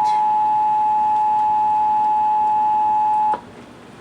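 Emergency Alert System attention signal: two steady tones sounding together, cutting off sharply about three and a half seconds in. It announces the emergency alert that follows, here a severe thunderstorm warning.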